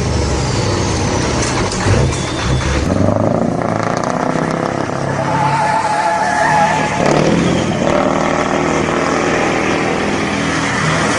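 Motor vehicles running: a steady, loud mix of engine and road noise, with a brief higher tone about halfway through.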